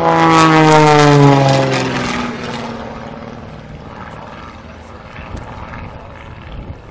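Small propeller plane flying past: its engine note drops in pitch as it goes by, loudest in the first two seconds, then fades away.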